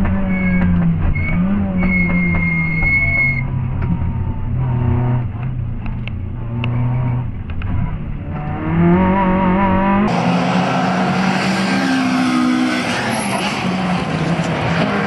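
Honda B16A1 1.6-litre four-cylinder engine of an MG ZR rally car, heard from inside the cabin, revving hard with the pitch dropping and climbing again through gear changes, and a brief high tyre squeal about two seconds in. About ten seconds in, the sound switches to the same car heard from trackside, its engine revving as it drives past.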